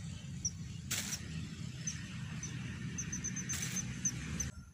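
Small birds chirping in short, high notes, singly and in a quick run of several near the end, over a steady low rumble that cuts off suddenly near the end. Two brief noisy bursts, one about a second in and a longer one later.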